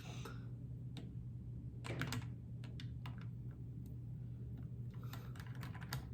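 Light, irregular plastic clicks and taps from a brick-built Lego car model being handled, bunched about two seconds in and again near the end, over a steady low hum.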